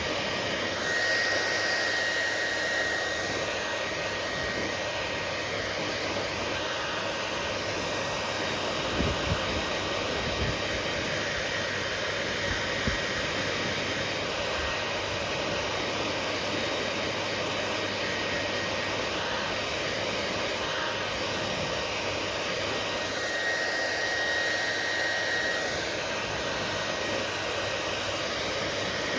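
Hair dryer running steadily, an even blowing hiss. A thin high whine rises out of it twice, about a second in and again past the twenty-second mark, and a few soft low bumps come near the middle.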